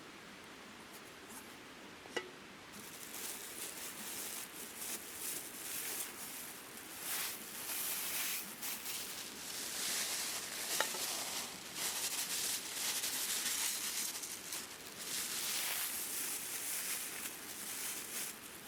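Food sizzling in a pan over a campfire, starting about three seconds in and swelling and easing in waves, with a few sharp pops.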